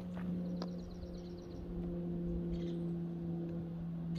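A steady low motor hum, with a quick run of high chirps about half a second in.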